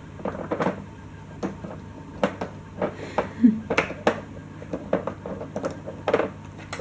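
Irregular clicks and knocks of a dog treat puzzle toy as a dog works its parts loose to get at hidden snacks.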